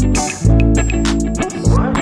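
Background music: sustained bass notes with a steady beat of sharp strikes over them.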